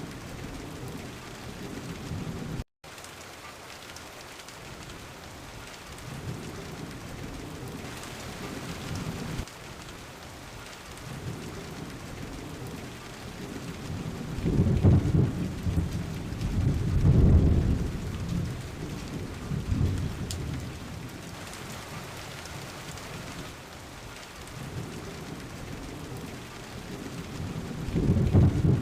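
Steady rain falling with thunder rumbling again and again, the loudest rolls about halfway through and another near the end. The sound drops out completely for a moment about three seconds in.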